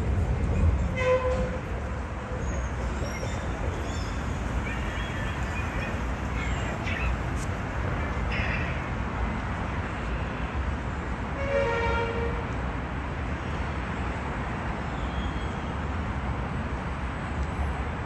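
Trams and road traffic at a city tram stop: a steady low rumble of running vehicles, a little louder for the first second. Two short horn toots sound, one about a second in and a stronger one near the middle.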